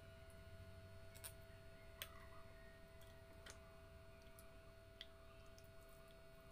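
Near silence with a few faint, sharp clicks from eating mussels by hand, over a faint steady hum.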